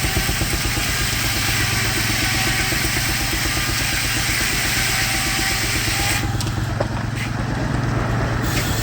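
Baker steam engine running with a fast, steady beat while it drives the Frick sawmill. A loud high hiss over it drops away suddenly about six seconds in.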